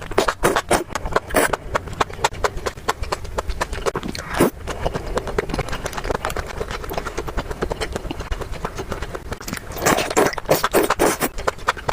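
Close-miked eating sounds: chewing with many quick wet mouth clicks and smacks, and a louder cluster of noisy bursts about ten seconds in.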